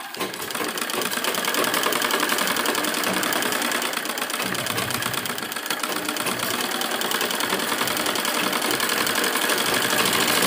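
Sewing machine running at a fast, even stitch, picking up speed over the first two seconds and then holding steady. It is sewing a second, reinforcing row of stitches along a sleeve seam.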